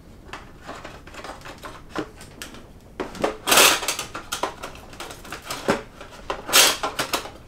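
Board game components being taken out of a box's black insert by hand: a run of small clicks, taps and rustles, with two louder scraping rustles, one about three and a half seconds in and one near the end.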